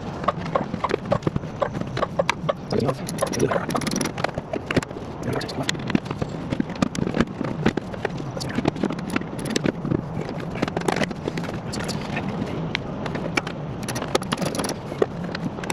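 Hand tools and metal parts clicking, tapping and clinking irregularly as an engine is being put back together.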